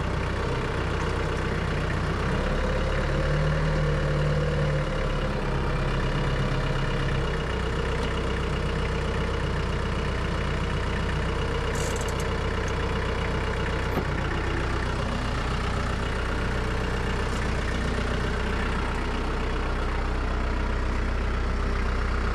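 Branson 3725 tractor's diesel engine running steadily, with a brief rise in its note a few seconds in.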